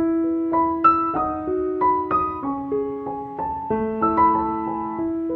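Background piano music: a gentle melody of single notes struck one after another over held lower notes.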